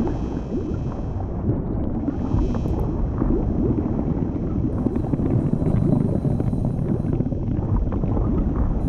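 Low, dense rumbling sound-design ambience of a bloodstream, with a crackling texture and faint thin high tones above it.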